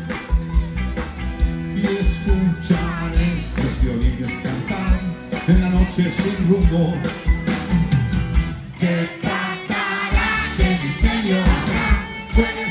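Live band playing amplified through a stage PA: electric guitar, bass, drum kit and keyboard with sung vocals over a steady kick-drum beat. The kick drops out briefly about two-thirds of the way through.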